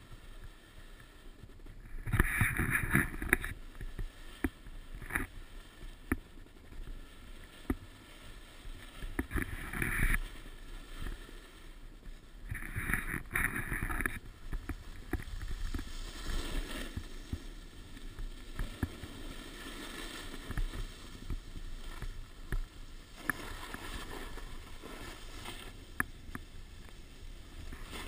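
Edges scraping and hissing over packed snow as a rider descends a ski run. There are loud scrapes in turns about two, five, ten and thirteen seconds in, with a steadier rushing in between.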